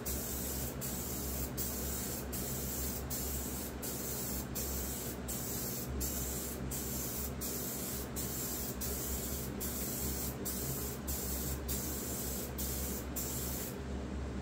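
Aerosol can of clear coat spraying with a hiss, broken into short passes about twice a second. The spraying stops near the end.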